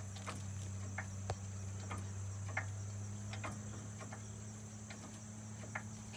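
Crickets trilling steadily outdoors under a louder low, steady hum, with a few scattered light clicks.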